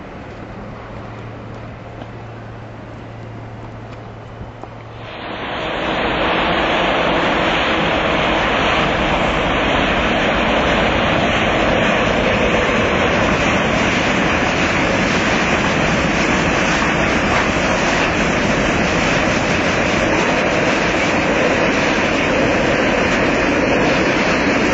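Diesel freight train: at first a diesel locomotive's engine humming steadily at a distance, then about five seconds in a loud, steady rumble of the locomotive and its wagons' wheels on the rails as the train passes close by.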